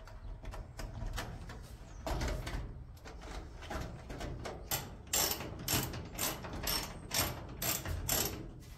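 Hand ratchet tool clicking in short strokes, fastening the leaf blower's mount to a wooden post; the clicks grow louder and more regular about halfway through, at roughly two a second.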